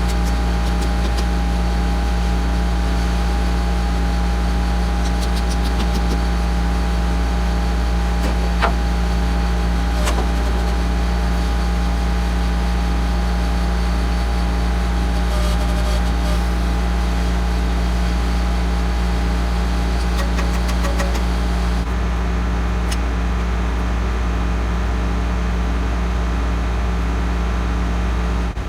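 Tractor engine running at a steady idle, with a few faint clicks.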